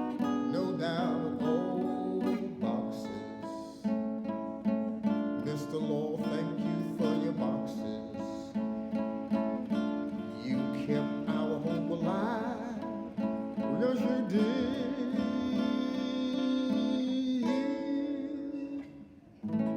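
Acoustic guitar music, strummed, with a wordless vocal line wavering over it; it drops away briefly near the end.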